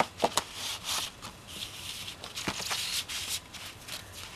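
A Blu-ray disc and cardboard gatefold packaging being handled: a few sharp clicks and a scratchy rubbing of disc against cardboard as the disc is slid back into its cardboard pocket.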